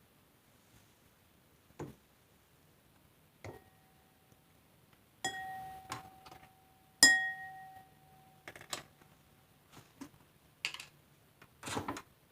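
Containers being handled and set down: scattered knocks, with two sharp clinks about five and seven seconds in that ring on briefly like struck glass.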